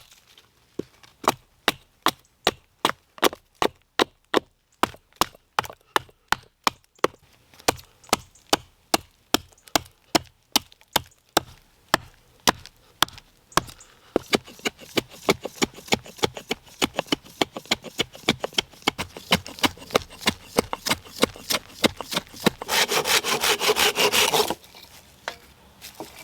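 A puukko knife shaving bark off a piece of oak in short, repeated strokes, about three a second at first and quickening in the second half. Near the end comes a couple of seconds of continuous scraping, the loudest part.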